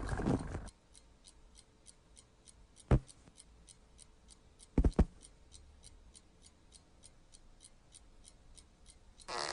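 Faint, even, rapid ticking in a quiet room, with one sharp knock about three seconds in and a quick double knock about two seconds later. A louder rough sound cuts off just under a second in.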